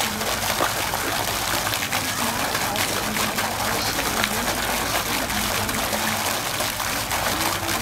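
Garden fountain's water jet splashing down into its basin, a steady rush of falling water.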